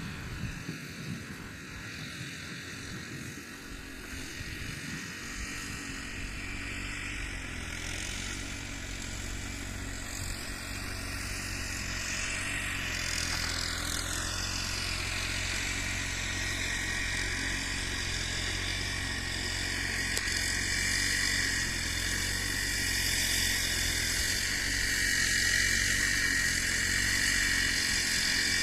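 Diesel railcar engine running, a steady low hum that grows gradually louder as the train draws near.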